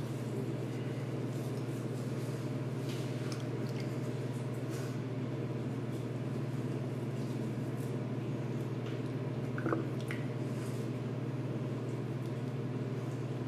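A steady low hum with faint scattered clicks and a short squeak about ten seconds in.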